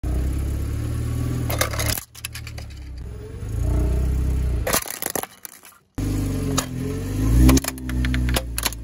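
A car's engine running low as its tyre rolls slowly onto plastic toys on asphalt, with sharp cracks and crunches of the plastic breaking under the wheel in three separate bursts.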